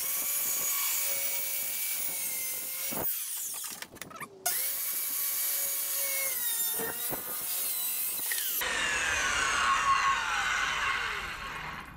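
Corded circular saw cutting through 1/4-inch plywood in two runs. The motor runs and cuts for about three seconds, stops briefly and starts again for about four more seconds of cutting. Then the blade winds down with a falling whine.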